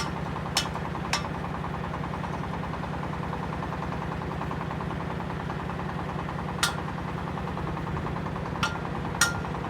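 Concrete mixer truck's diesel engine running steadily at a low, even pulse, with five short, sharp metallic clinks spread through it.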